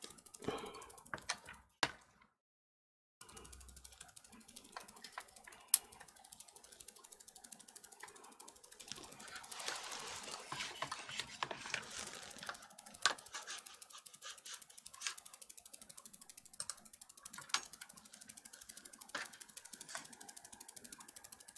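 Faint rapid mechanical ticking with scattered sharper clicks, like a small ratcheting mechanism being worked, broken by a brief total silence a couple of seconds in.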